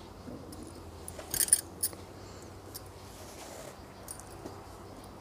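Small, sharp clicks and ticks from a crochet hook and wool yarn being worked by hand, with a louder cluster of clicks about a second and a half in.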